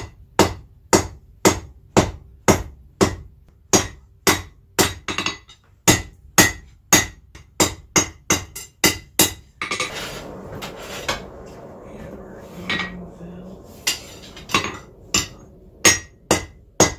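Blacksmith's hand hammer striking hot steel on an anvil at about two blows a second, drawing out the point of a knife blade. The rhythm breaks for a few seconds near the middle, then the blows resume.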